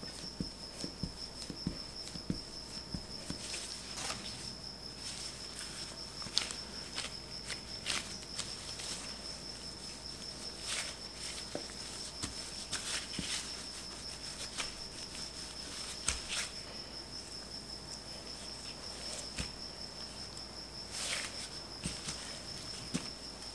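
Wooden rolling pin rolling tart dough on a silicone baking mat: irregular soft taps, clicks and short brushing swishes as the pin is pressed and pushed back and forth. A steady high-pitched tone runs underneath.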